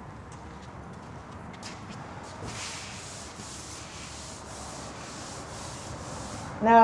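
Hand sanding: sandpaper rubbed back and forth over the 1967 Impala's steel body panel along the taped body line, a run of even strokes at about two a second starting a couple of seconds in.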